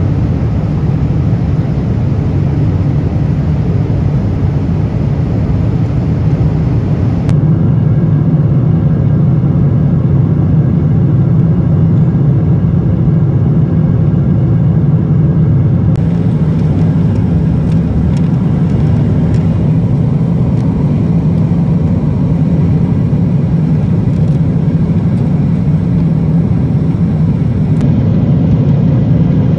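Steady cabin roar of a Boeing 777-300ER in cruise, heard from inside the economy cabin: the deep rush of its GE90 engines and the airflow over the fuselage. Its tone shifts slightly a few times.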